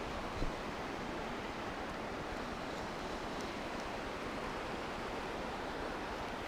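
Steady rush of a shallow river running over a rocky bed.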